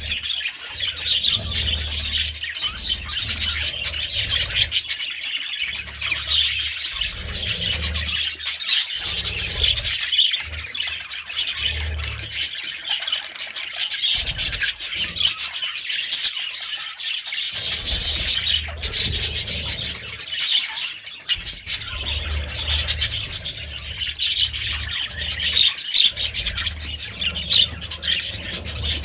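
A flock of budgerigars chattering and warbling, with dense, continuous chirps and squawks overlapping throughout.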